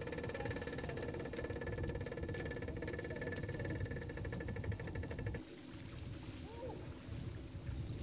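An engine running steadily with a fast, even pulse. About five and a half seconds in it cuts off abruptly and gives way to a lower, rougher rumble.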